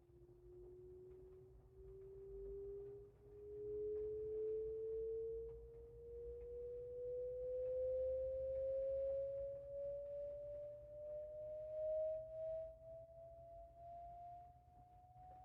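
Sine-wave test tone played through an 8-inch woofer in a small two-way speaker cabinet, sweeping slowly upward in pitch. Its loudness swells and dips as it climbs, as the cabinet resonates from about 400 Hz up, with a low hum underneath.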